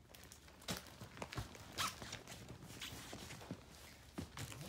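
Footsteps on a hardwood floor: a run of soft, irregular knocks and shuffles, a few to a second.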